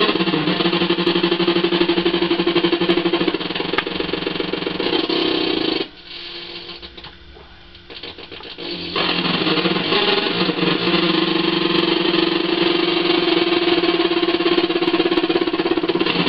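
Electric guitar played through a breadboarded Schumann Two Face fuzz circuit with its drive turned up: a thick, buzzing fuzz tone on long held notes. It drops away about six seconds in and swells back about three seconds later.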